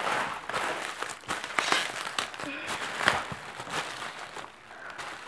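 Bubble wrap and packing paper rustling and crinkling as they are pulled off scooter handlebars, with many sharp crackles throughout.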